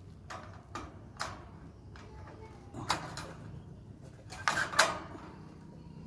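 Red wire birdcage rattling and clacking as it is handled by hand: several short metallic knocks, the loudest pair about four and a half seconds in.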